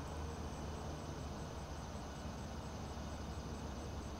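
Steady low background rumble with a faint hiss, and a faint high-pitched pulsing about four times a second.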